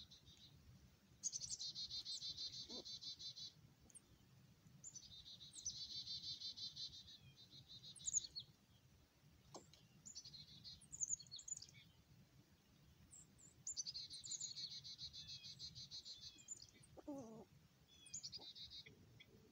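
Songbirds singing: a fast trill repeated about five times, each run lasting one to three seconds, with short high chirps between.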